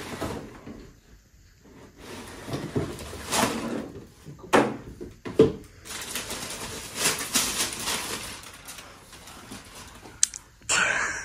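Paper and cardboard rustling as a sneaker box is opened and the wrapped shoes are pulled out, with a few sharp knocks from the box being handled.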